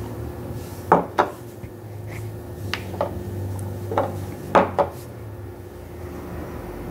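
A face-mask brush clinking and scraping against a small bowl as paste is scooped up: about seven sharp clicks, mostly in pairs, in the first five seconds. A steady low hum runs underneath.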